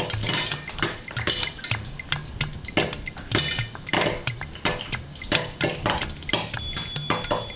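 Popcorn kernels popping in hot oil in a covered pot on a stove: rapid, irregular pops, several a second, with kernels knocking against the pot and lid.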